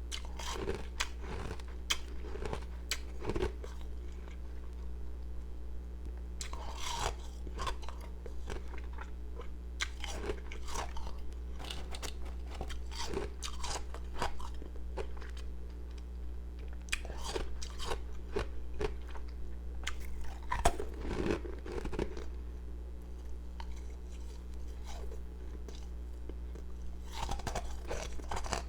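Powdery, carbonated ice pieces being bitten and chewed close to the microphone: bursts of sharp, crisp crunches with short pauses between bites.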